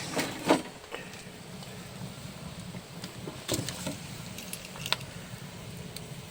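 Wood bonfire crackling, with scattered sharp pops over a steady low background; the loudest pop comes about half a second in.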